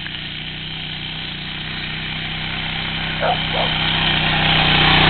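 ATV engine running steadily while towing a rider on a seat across dirt, growing louder as the quad comes closer. Two short yelps are heard a little past three seconds in.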